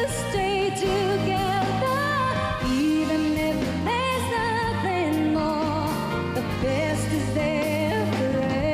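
A female singer sings a slow pop ballad with vibrato on held notes, over band accompaniment.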